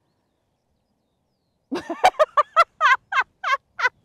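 A gull's long call: a loud series of falling cries, about four a second, starting nearly two seconds in.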